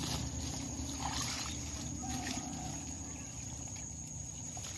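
Steady high-pitched insect drone over a low outdoor rumble, with a few faint, light rustles.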